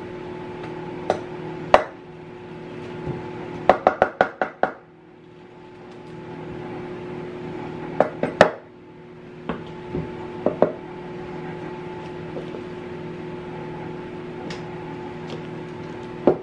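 A wooden spoon knocking and scraping against a batter bowl and metal muffin tin while batter is dropped into the cups: scattered sharp taps, with a quick run of about seven taps around four seconds in and short clusters near eight and ten seconds. A steady hum runs underneath.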